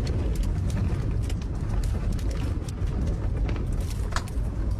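Strong wind rumbling and buffeting, with scattered light clicks and rattles.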